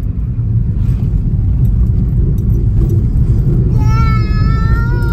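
Steady low rumble of a car driving, heard from inside the cabin. About four seconds in, a high held tone with several overtones comes in over it.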